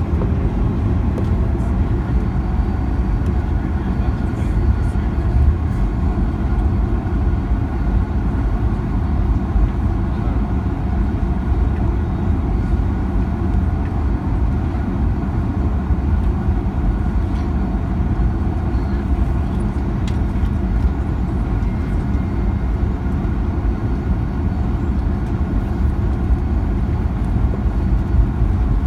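Inside the cabin of a Boeing 737-900ER taxiing: a steady low rumble from its CFM56-7B engines at taxi power and the wheels rolling over the taxiway, with a faint steady whine above it.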